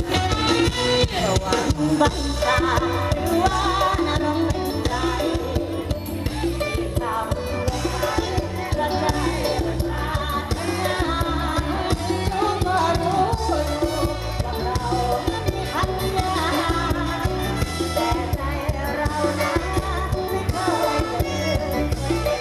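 Live mor lam band music played loud through a stage sound system, with a steady driving beat under melodic lines.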